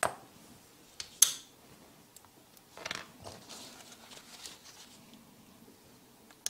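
Handling noise of a small screwdriver and the plastic camcorder body on a desk: a few sharp clicks and taps, the loudest a little over a second in, then a short scrape near the middle and softer rustling of gloved hands.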